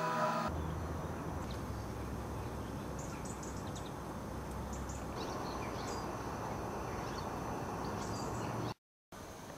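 Outdoor garden ambience: a steady low rumble of background noise with scattered short, high bird chirps.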